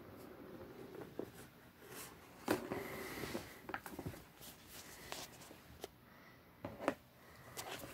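Kitten playing with a plastic ball-track cat toy with a cardboard scratch pad: faint scattered clicks and knocks, with a short scratchy rustle about two and a half seconds in.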